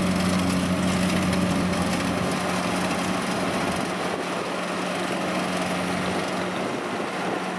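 Kubota DC-70 combine harvester running steadily while harvesting rice: an even diesel engine hum under the dense rushing clatter of the cutting and threshing machinery, a little fainter in the second half.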